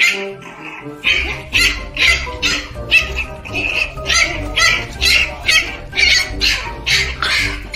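A puppy yelping over and over, short high cries about twice a second, while its tail is held. Background music with a steady bass comes in about a second in.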